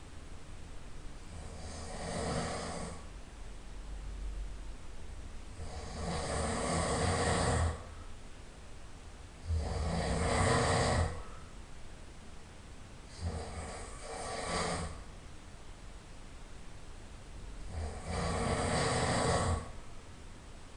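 A man snoring in his sleep: five snores, each about a second and a half long, coming roughly every four seconds, with quieter breathing between them.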